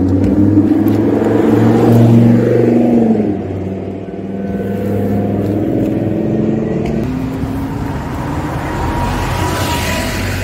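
Lamborghini Huracán Spyder's V10 accelerating past, its engine note rising for about three seconds before it falls away. Steadier, quieter engine sound of following traffic comes after, with another car drawing closer near the end.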